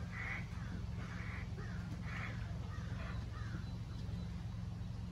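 Crows cawing: a run of short, harsh caws, several a second apart, through the first few seconds, then they stop. A steady low rumble runs underneath.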